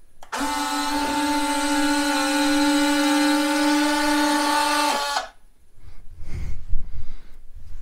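Motorised nose-gear retract of an RC jet whining steadily as it cycles the gear leg, stopping abruptly about five seconds in.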